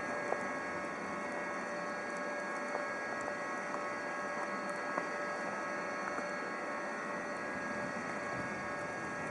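Steady distant hum of a Bombardier TRAXX F140 locomotive standing in the station hall, with a light hiss, a few faint steady high tones and an odd faint click.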